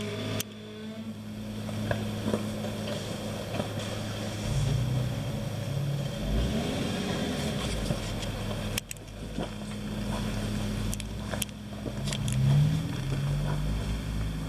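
Off-road 4x4's engine running steadily, revving up briefly about four and a half seconds in and again near the end as it works up a rocky hill climb, with a few sharp knocks in between.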